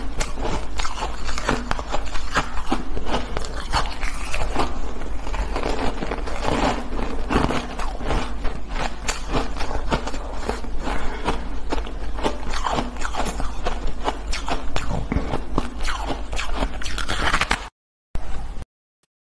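Frozen shaved ice being bitten and chewed close to the microphone: a dense, rapid run of loud crunches and cracks as the icy chunks break between the teeth, over a steady low hum. The sound cuts off abruptly near the end.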